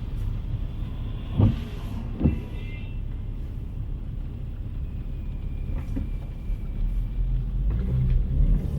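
City street traffic: cars passing with a steady low rumble, two short knocks about a second and a half and two seconds in, and the rumble growing louder near the end as a vehicle comes closer.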